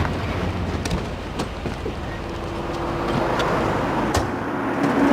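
Road traffic and a car running, with a few sharp knocks about one second in, about a second and a half in, and again about four seconds in.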